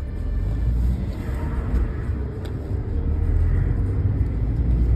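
Car driving, a steady low rumble of engine and road noise.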